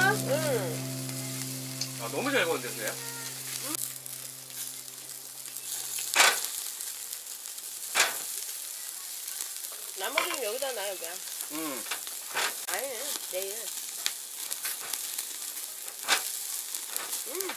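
Pork ribs sizzling on a wire grill over charcoal, a steady hiss, with tongs clicking against the grate a few times.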